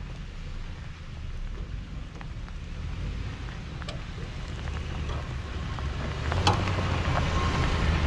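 Toyota SUV driving slowly along a muddy dirt trail toward the microphone, its low engine rumble growing louder as it comes close, with sharp clicks and crackles from the tyres on the dirt near the end.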